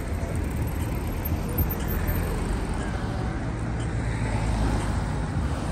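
City street traffic: cars driving past with a steady low rumble.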